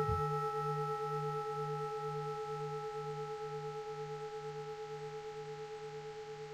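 Fading ring of a struck Buddhist temple bell: several steady tones slowly die away over a low hum that throbs about twice a second.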